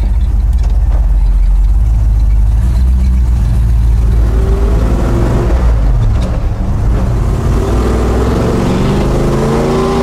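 Old pickup truck's engine running at idle, then picking up speed about halfway through, its pitch rising as the truck pulls away under acceleration.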